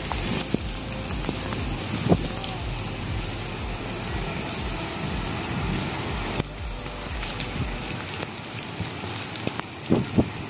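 Heavy rain pouring steadily onto a concrete rooftop, a dense even hiss. A few sharper taps of drops land close by, one about two seconds in and several near the end.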